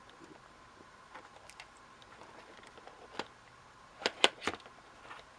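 Light clicks and taps from handling a digital multimeter, its probe leads and the stripped wire ends of a cut AC adapter cable. A few faint ticks come first, then a quick cluster of sharper clicks a little after four seconds in.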